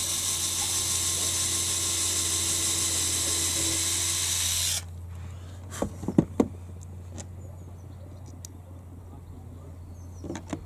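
Handheld power drill boring a pilot hole into the middle bar of a boat's windscreen frame. It runs steadily for about five seconds and then stops suddenly, followed by a few light knocks.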